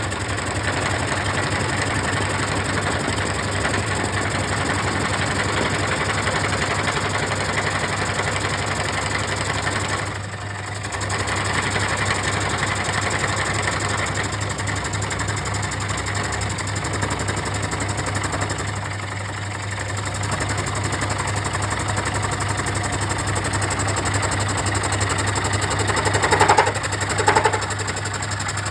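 CNC woodworking machine running steadily while cutting wood, with a constant low hum under the cutting noise. The cutting noise eases off briefly twice, and near the end two short, louder pitched bursts stand out.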